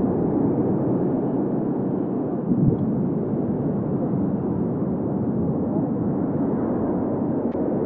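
Steady low rumbling ambience from a field recording, muffled and dull, with a brief thump about two and a half seconds in and a faint click near the end.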